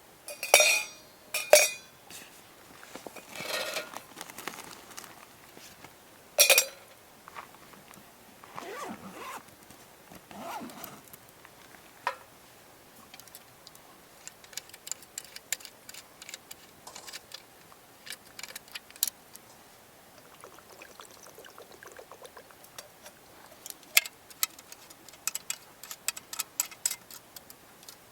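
Camping gear being handled by hand: short rustles, light knocks and small metallic clinks and ticks, with a denser run of quick ticks in the second half.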